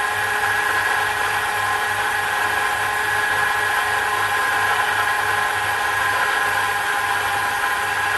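Sherline miniature metal lathe running under power, its motor and spindle giving a steady whine of several held tones over a low hum that pulses a few times a second.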